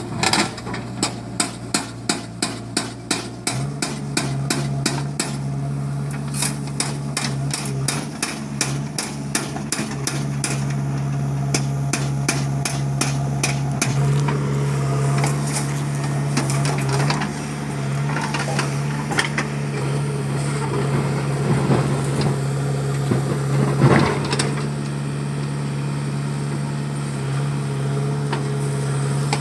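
Diesel engine of a JCB 3DX backhoe loader running steadily under load as it digs wet sand and loads a tractor trolley, with scattered clatter from the bucket and soil, loudest about four-fifths of the way through. The first few seconds hold a sharp regular ticking, about three clicks a second.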